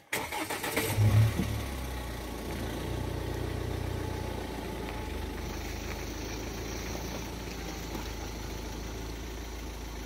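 A vehicle engine idling steadily, with a brief swell about a second in before it settles.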